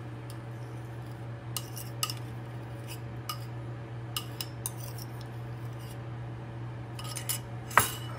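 Metal spoon scraping and clinking against a ceramic bowl as the bowl of cashew paste is emptied into a frying pan: a scattered series of light clinks, with a sharper knock near the end. A steady low hum runs underneath.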